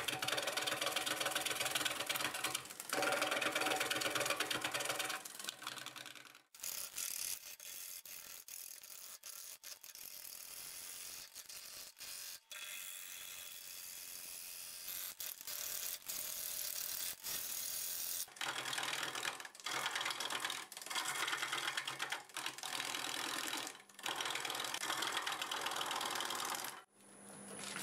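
Wood lathe spinning a wet green cherry bowl blank at about 620 RPM while a 5/8-inch bowl gouge roughs it out. The cutting noise comes and goes with each pass: louder at first, lighter through the middle, heavier again later, then falling away near the end.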